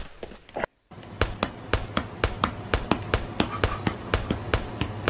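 Fast, even series of sharp taps or slaps, about four a second, over a low steady hum. It starts after a brief dropout to silence about a second in.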